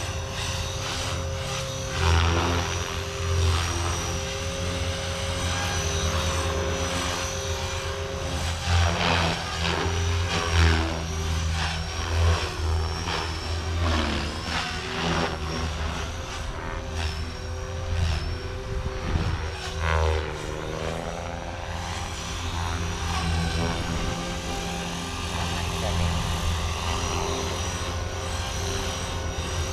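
Blade Fusion 360 Smart electric RC helicopter flying at high head speed: a steady motor and rotor whine over a low blade beat. The pitch sweeps down and back up several times as it swoops past and manoeuvres.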